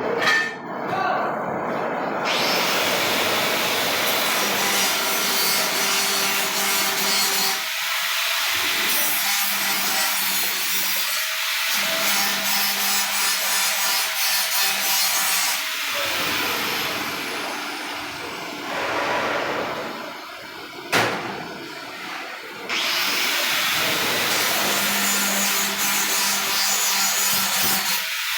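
Harsh, steady rasping noise of metalwork in two long runs, broken by a quieter stretch with a single sharp click about 21 seconds in.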